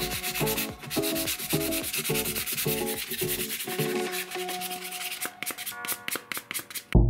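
Sandpaper rubbed back and forth by hand over wood, a steady gritty scraping.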